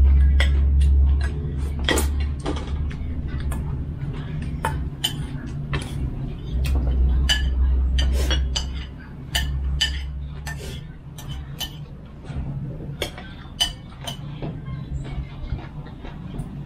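Metal spoons clinking and scraping against china plates and steel bowls and pots at a meal, in irregular separate clicks. Under it runs a steady low hum, and a deep rumble that is loudest in the first few seconds and returns for a couple of seconds in the middle.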